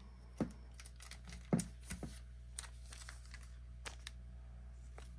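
Trading cards being handled and sorted: scattered light taps and rustles, the two loudest in the first two seconds, over a faint steady hum.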